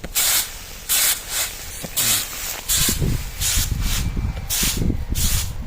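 Wheat grain swishing in regular strokes, about two a second, as it is winnowed and cleaned by hand. A low rumble comes in about halfway through.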